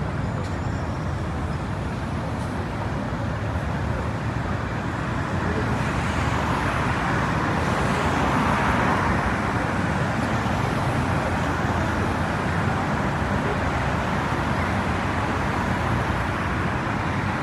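Road traffic passing by: a steady wash of car tyre and engine noise, swelling louder for a few seconds about halfway through as vehicles pass close.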